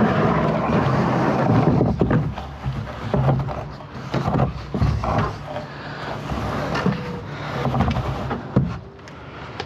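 Knocks, bumps and scrapes of a large plywood sheet being lifted and carried by hand, over a steady low rumble.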